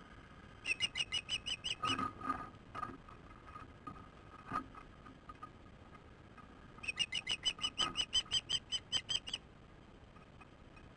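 Ospreys at their nest giving two runs of rapid high chirps, about five a second, each run lasting about two seconds. Softer, lower calls come in between.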